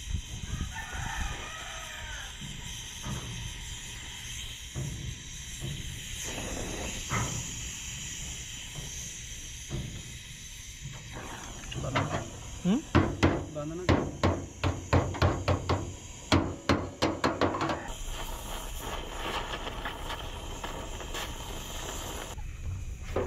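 Oxy-acetylene welding torch hissing steadily as it gas-welds a truck cabin's steel panel. From about halfway through, a run of about a dozen loud metallic knocks, roughly two a second, lasts for around six seconds.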